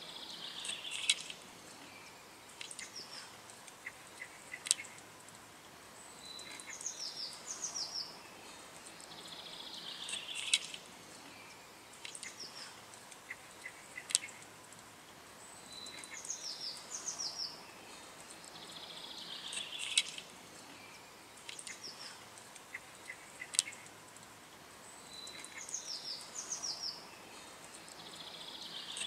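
Small birds chirping and trilling, with a sharp click in each cycle; the whole pattern repeats about every nine and a half seconds, like a looped birdsong recording.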